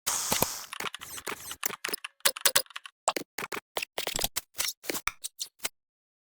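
A rapid, irregular series of sharp clicks, about five a second, stopping about a second before the end.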